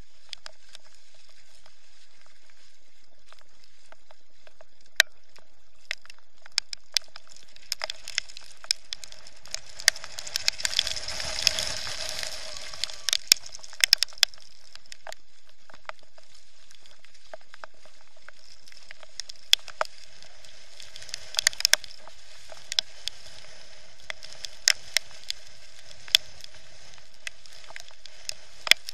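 Crackling and sharp irregular taps of spray and wind chop striking a sailing kayak and the waterproof housing of its action camera, over a steady muffled hiss. A louder rush of water and wind comes about ten to thirteen seconds in.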